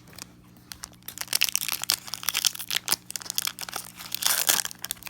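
Foil Pokémon card booster pack wrapper being torn open and crinkled, in quick irregular crackles that start about a second in.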